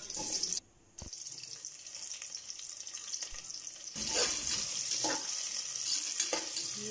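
Sliced onions sizzling in hot oil and ghee in an aluminium pressure cooker. From about four seconds in, a spoon scrapes the pan in repeated strokes as they are stirred.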